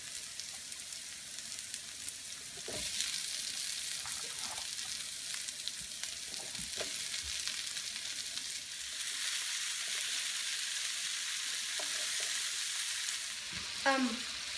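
Diced onion and bell peppers sizzling in oil in a frying pan on a gas stove, with a steady hiss. The sizzle gets louder about three seconds in and again near nine seconds, as diced zucchini and yellow squash go into the hot pan, with a few light knocks of vegetables and utensils.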